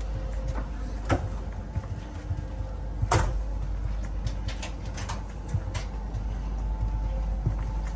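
Steady low rumble inside a sleeper train's corridor, with scattered knocks and clicks. There is one about a second in, a louder clattering knock about three seconds in, and a quick run of clicks around five seconds in.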